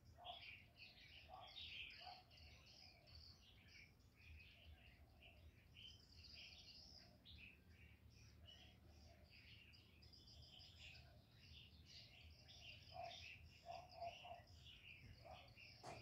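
Spotted dove cooing softly: a few short coos near the start and a cluster of them about 13 seconds in, over continual faint high-pitched chirping.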